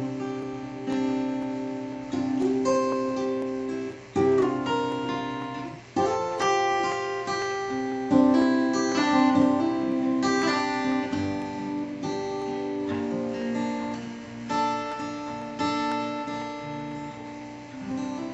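Acoustic guitar playing a song's closing instrumental: chords struck every couple of seconds and left to ring, the playing slowly getting quieter toward the end.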